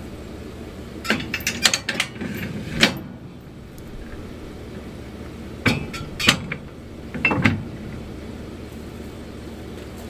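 Metal clinks and clanks of a disc ripper's hitch and safety chains being handled at a pickup's hitch: a burst of sharp clinks about a second in, lasting a couple of seconds, then a second burst from around six to seven and a half seconds.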